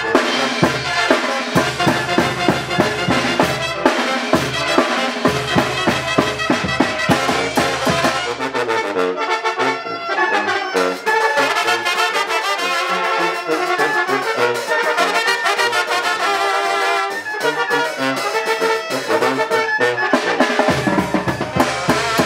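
Live brass band playing a lively tune, with a bass drum and snare keeping the beat. About eight seconds in the drums drop out and the brass carries on alone; the drums come back in near the end.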